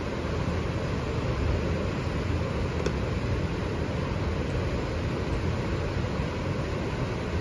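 River rapids rushing: a steady, even roar of fast water over rocks.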